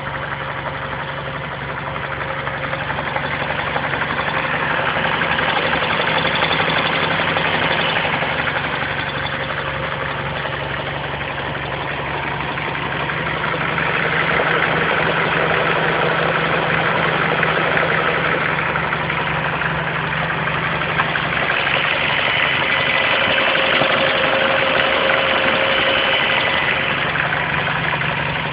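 VW Golf 5 GT's TSI petrol engine idling steadily, with the strange noise the owner is showing: a hissing rush that swells and fades three times in slow waves over the hum.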